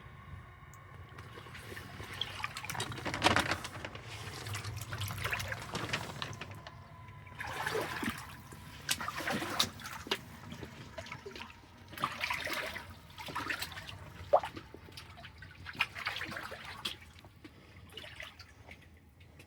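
Water splashing and pouring in a series of irregular bursts, with a few sharp knocks among them.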